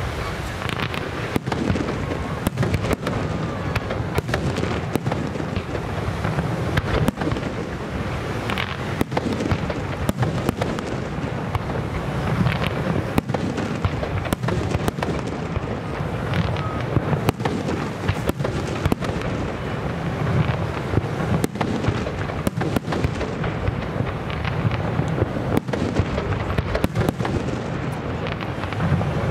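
Aerial fireworks display: comets launching in fans and shells bursting overhead, a continuous run of rapid, irregular bangs and crackle over a deep rumble.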